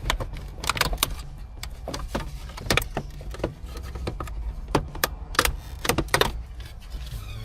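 Plastic dashboard trim panel being pried off its retaining clips: about a dozen irregular sharp clicks, snaps and knocks of plastic, over a low steady hum.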